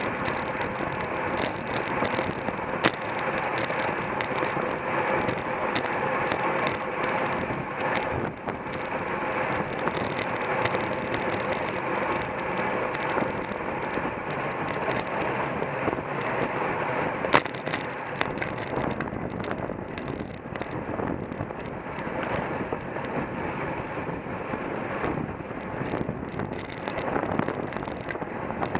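Steady rush of wind and tyre-on-road noise from a bicycle ridden at race speed, picked up by a camera mounted on the bike. A couple of sharp clicks stand out, one near the start and a louder one about halfway through.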